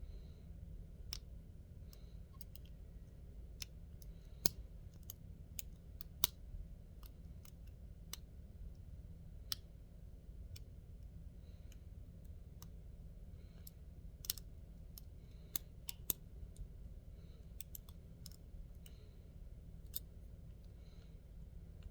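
Metal lock pick working inside a lock: irregular sharp clicks and small scrapes as the pick moves the pins, a few clearly louder than the rest, over a faint steady low hum.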